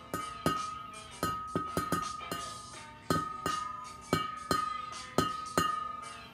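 Background music: sharp struck percussive hits in an uneven rhythm over a steady, high, bell-like held tone.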